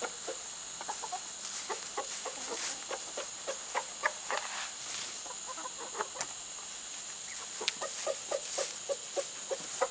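Backyard hens clucking: a run of short, separate clucks, thickest near the end.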